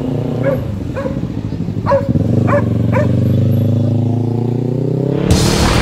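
A dog barking in short single barks, about six in the first three seconds, over the steady low running of a vehicle engine that rises a little in pitch.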